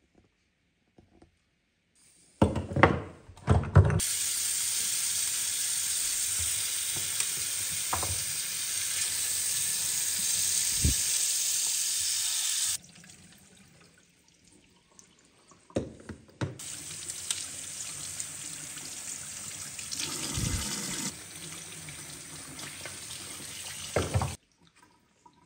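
Kitchen tap running onto blocks of ice in a sink, the water splashing off the ice, with a few sharp knocks before it starts. The flow cuts off suddenly about halfway, then after more knocks runs again more quietly and stops near the end.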